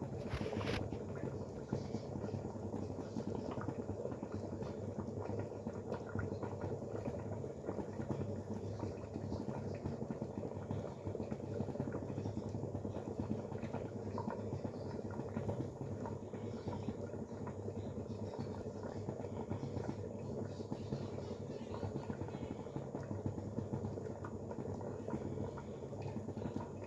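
Gajar ka halwa (grated carrots cooking in milk) bubbling steadily in a pot, with many small pops.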